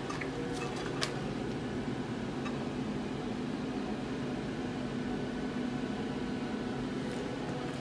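Yoder YS1500 pellet smoker running at cooking temperature, its fan giving a steady low hum, with a faint tick about a second in.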